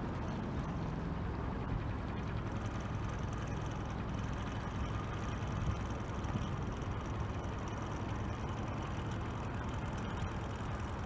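A small yacht's inboard engine running steadily at low speed while motoring through a moorings, heard from aboard.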